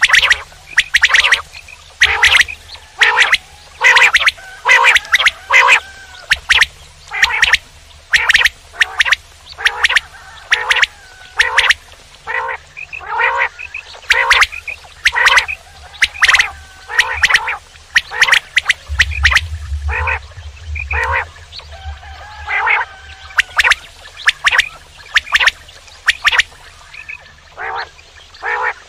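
Common quail calling over and over: short, sharp call notes at about one or two a second, some in quick pairs, with a low steady hum underneath.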